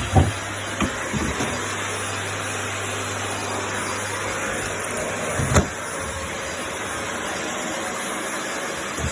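Vacuum cleaner running steadily, with a few knocks in the first second and a half and a thump about five and a half seconds in.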